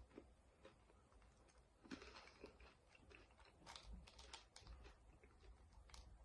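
Faint, irregular clicks and taps of chopsticks fumbling at hard-shelled M&M candies.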